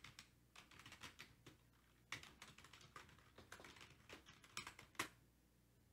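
Faint computer keyboard typing: irregular key clicks as a command is typed, with one firmer key press about five seconds in.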